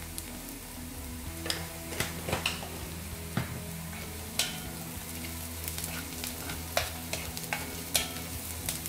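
Onions, garlic and green chilies sizzling in coconut oil in an iron wok while a bamboo spatula stirs them, with irregular sharp knocks and scrapes of the spatula against the pan.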